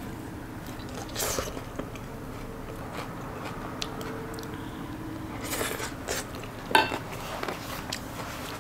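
Close-up eating sounds: chewing and crunching a mouthful of leafy green salad, with light clicks of chopsticks and cutlery against ceramic bowls. A few short bursts of crunching come and go, the loudest a sharp one near the end.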